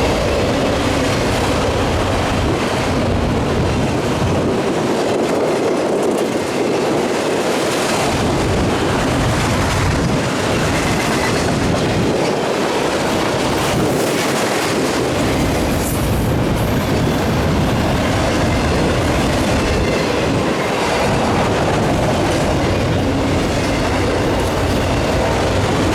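A train's cars rolling past at close range, wheels clacking over rail joints, with some squeal from the wheels.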